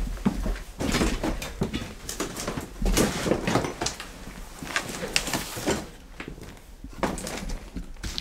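Irregular footsteps, scuffs and knocks with rustling of clothing and debris as people move through a cramped, cluttered room; one or two louder bangs like a door knocked against.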